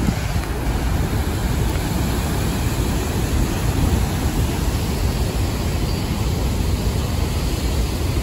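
Niagara Falls pouring over its brink close by: a loud, steady rushing of falling water.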